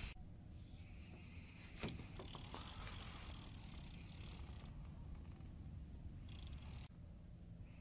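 Faint mechanical rattling and clicking as a fishing rod and reel are handled and lifted from a rod holder, with a sharp knock about two seconds in and a low steady rumble underneath.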